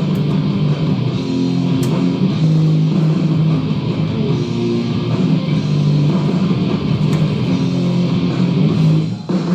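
A guitar-driven rock song playing on an FM radio station, just after the station's announcement for a music block.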